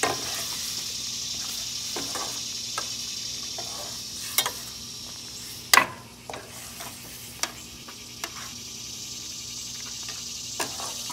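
Milk-based curry simmering and sizzling in a stainless steel pan over a gas burner, while a metal spoon stirs it and clinks against the pan several times; the loudest clink comes about six seconds in.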